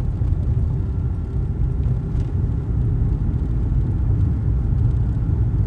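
Steady low rumble with no distinct bangs or other separate events.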